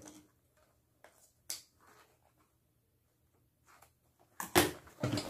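A sewn fabric bag being handled: a few short rustles and clicks, a quiet stretch, then two louder rustles about four and a half and five seconds in.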